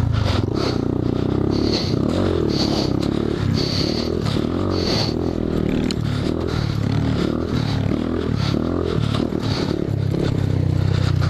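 Honda Grom's 125 cc single-cylinder four-stroke engine running under throttle, its pitch rising and falling repeatedly as the rider rolls the throttle on and off.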